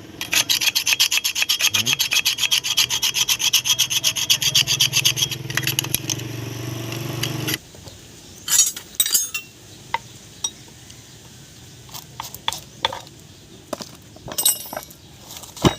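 Rapid, even back-and-forth scraping with a low hum under it, which stops sharply about halfway through. Scattered light metal clicks and knocks follow.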